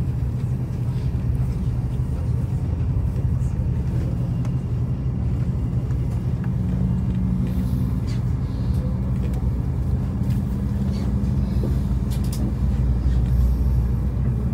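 Inside the cabin of an Airbus A330-300 during engine start: a steady low rumble, with a further low hum joining about halfway through and edging slightly higher as an engine spools up.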